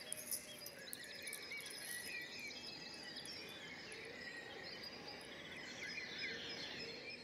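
Faint outdoor ambience: many small birds chirping and twittering in quick short calls, with a high insect buzz behind them.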